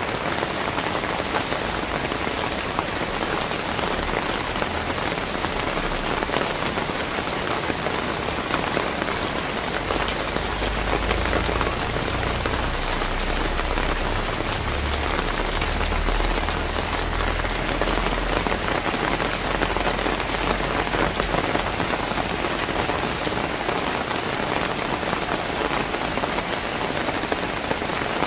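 Steady rain falling on hard surfaces: a dense, even hiss throughout. A low rumble runs underneath for several seconds around the middle.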